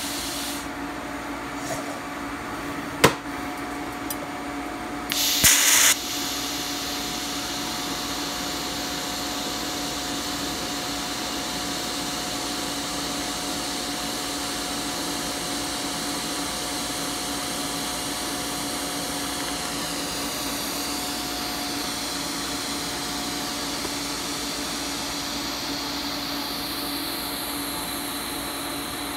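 TIG welding arc on 16-gauge 304 stainless steel at about 100 amps. It gives a short, loud crackling burst as the arc strikes about five seconds in, then a steady hiss while the fillet bead is run, over a constant hum. A single sharp click comes about three seconds in.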